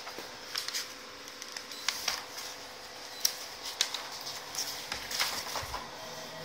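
Pages of a bound paper case file being turned by hand: paper rustling with scattered light clicks and taps.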